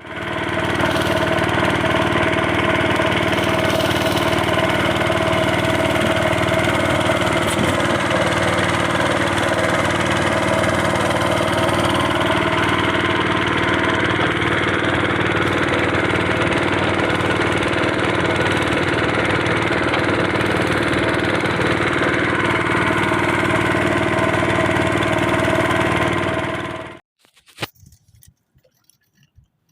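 An engine running steadily at constant speed, then stopping abruptly near the end.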